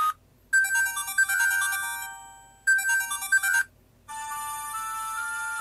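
An iPhone 2G clone phone's loudspeaker previewing its built-in MIDI ringtones one after another. One melody cuts off right at the start, the next plays for about three seconds, and after a short silence another begins about four seconds in.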